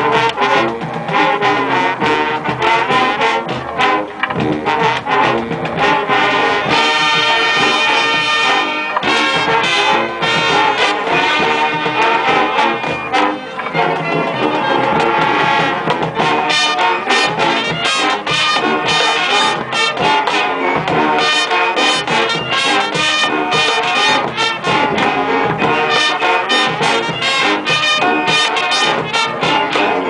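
Marching band playing a funk and disco medley: a full brass section including sousaphones, over percussion hits that come thicker and more rhythmic from about halfway through.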